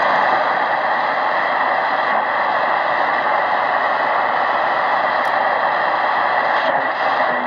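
Static hiss from a Tecsun PL-680 shortwave receiver's speaker as it is tuned up through the 31-metre band between stations: a steady rushing noise with no clear signal.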